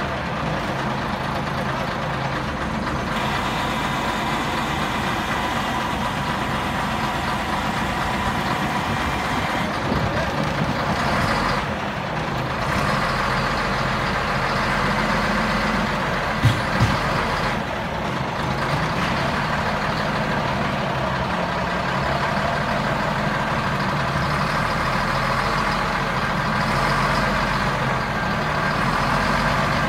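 Wheel loader's diesel engine running steadily as its bucket works against the crashed tractor-trailer's trailer. Two sharp knocks come close together about halfway through.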